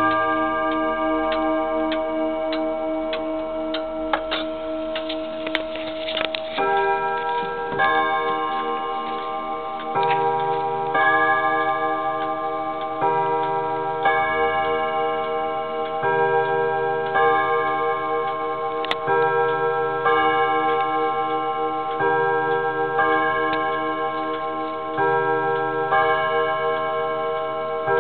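Junghans wall clock chiming: its chime rods are struck in a slow sequence, a new note about every one to two seconds, each ringing on long and overlapping the next. In the first few seconds only earlier notes ring on with a few clicks, and the strikes begin about six seconds in as the hands come round to the hour.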